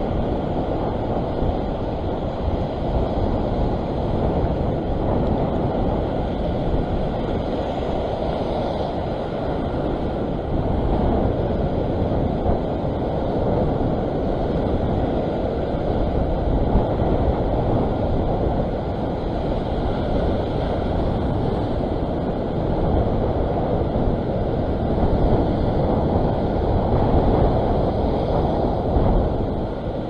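Wind buffeting the microphone over ocean swell washing and breaking against the rock ledge: a steady, low rush with no let-up.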